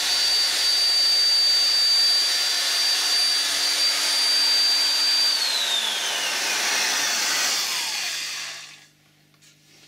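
Vintage Wolf 3/8-inch heavy-duty corded electric drill running free with no bit, its motor giving a steady high whine. About five seconds in, the trigger is let go and the motor spins down, the whine falling in pitch until it stops.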